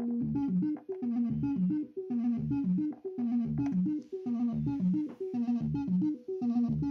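Moog Werkstatt-01 analog synthesizer playing a sequenced bass line from an SQ8 CV/gate sequencer: a short run of plucky notes that loops about once a second.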